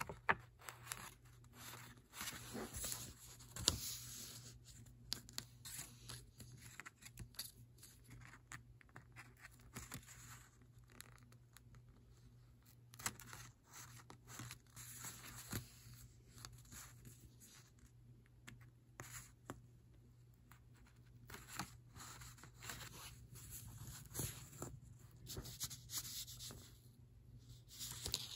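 Faint, irregular rasping of a needle and double strand of thread being drawn through a sewing practice card as whip stitches are sewn, with light handling rustles in between.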